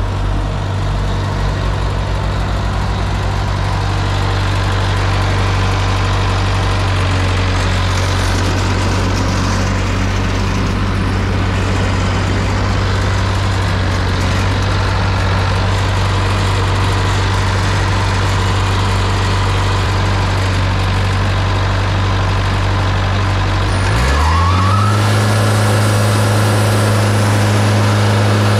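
A heavy engine idling steadily, then speeding up about four-fifths of the way through and holding at the higher speed.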